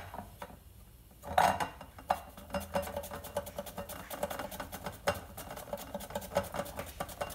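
Cucumber being sliced thin on a plastic mandoline slicer: quick, repeated strokes of the cucumber across the blade, starting about a second in.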